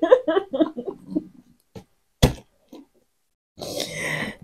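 A woman laughing, the laugh breaking into short pulses and fading out over the first second or so. About two seconds in there is a single sharp knock, and near the end a brief rustle as a cardboard box is handled.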